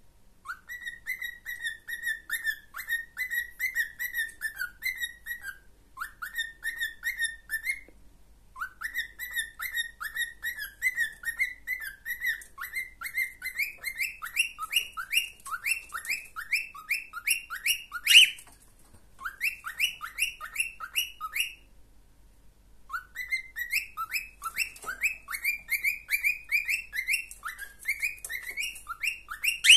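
Pet cockatiel whistling: long runs of short, clear whistled notes, about four a second, in several bursts broken by brief pauses. The notes climb in pitch through the middle stretch, with one sharper, louder note about two-thirds of the way through.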